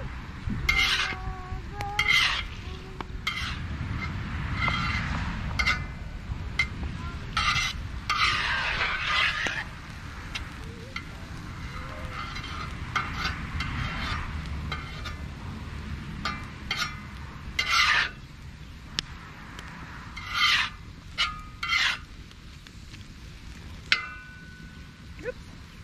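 A utensil stirring and scraping in a cooking pot in irregular strokes, more frequent in the first half and sparser later, over a steady low rumble.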